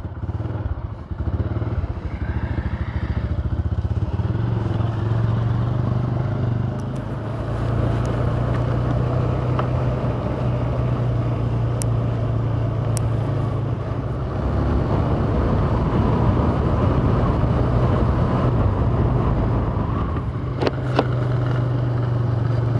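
Motorcycle engine running as the bike rides along a road, a steady low drone with road and wind noise over it.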